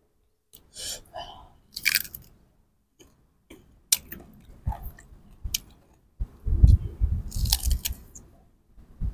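Crisp bites and crunchy chewing of raw young green mango slices dipped in chili salt: a few sharp crunches in the first two seconds, then louder, dense chewing from about six seconds in.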